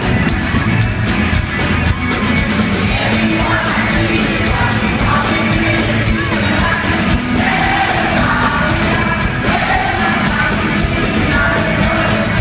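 Live rock music at a concert: a band playing at a quick beat with a male lead singer, and yells from the audience.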